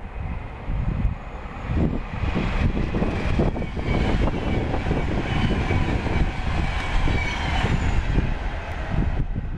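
A train passing at speed: a dense rushing noise with faint high steady tones, building up and then cutting off sharply near the end, over wind buffeting the microphone.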